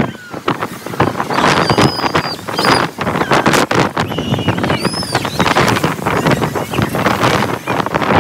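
Wind rushing and buffeting over a phone's microphone on a fast-spinning fairground ride, loud and gusting, with several short high-pitched squeals over it.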